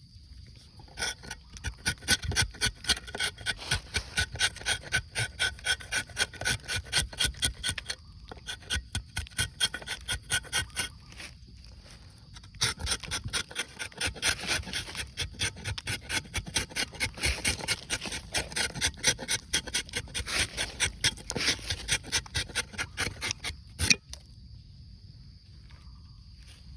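Rubber-tapping knife scraping the bark of a rubber tree in quick, even rasping strokes, about three a second, with a short pause partway through. The strokes stop with a single sharp click near the end.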